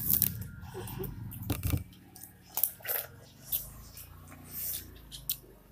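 Watermelon being bitten and chewed, a string of short, crunchy bites scattered through the few seconds.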